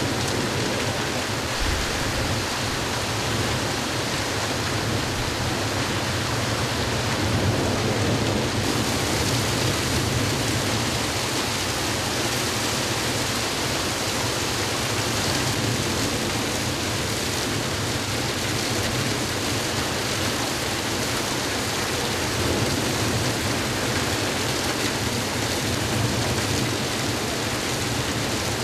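Heavy downpour: a steady, even hiss of rain pouring onto flooded streets.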